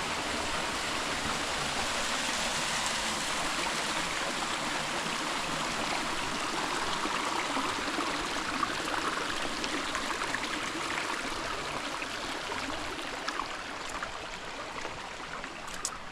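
Creek water flowing over rocks, a steady rushing that grows slowly fainter over the last few seconds, with a few faint ticks near the end.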